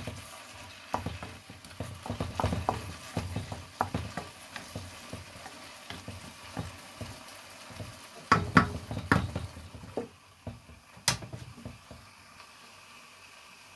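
Wooden spatula stirring and scraping a sizzling squash and tuna curry in a wok, in irregular strokes that are loudest around eight to nine seconds in. About eleven seconds in comes a single sharp clink as the glass lid goes on, then only a faint steady hiss of the curry cooking under the lid.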